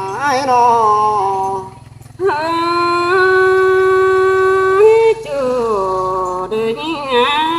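A solo voice singing a Tai (Thái) folk song of northwest Vietnam in a slow, ornamented melody. After a short breath about two seconds in, it holds one long note for nearly three seconds, then glides on into the next phrase.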